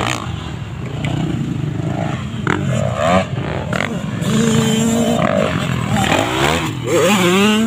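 Motocross dirt bike engines revving as the bikes race by, the pitch rising and falling with the throttle; an engine holds a steady note about halfway through, and bikes accelerate hard with rising pitch near the end.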